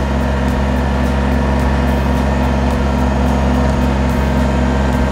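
Kubota compact tractor's diesel engine running at a steady speed, an even low hum with no revving.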